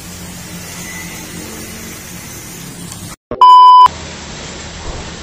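A steady low hum and background noise, then about three seconds in the sound drops out and a loud, steady electronic beep tone plays for about half a second: a bleep tone inserted at an edit cut.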